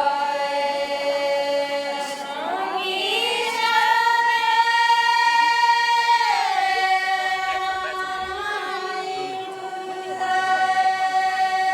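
A group of women singing together in long held notes, rising to a higher note about two and a half seconds in and dropping back about six and a half seconds in.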